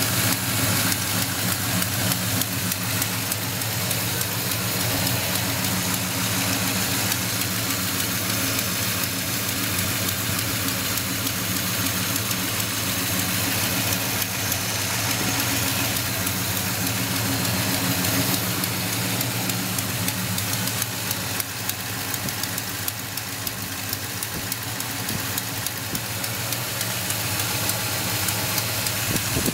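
1972 Chevrolet Monte Carlo's V8 engine idling steadily, with a rapid ticking from an exhaust leak.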